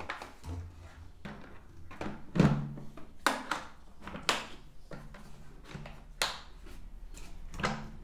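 Plastic knocks and clicks as the motor head of a Wap GTW Bagless wet-and-dry vacuum is set back onto its tank and the side latches are snapped shut; the loudest knock comes about two and a half seconds in. The vacuum is not running.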